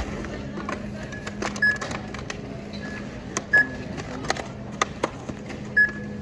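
Grocery checkout barcode scanner giving several short, high beeps of one pitch as items are rung up, among clicks and knocks of groceries being handled, over a steady low hum.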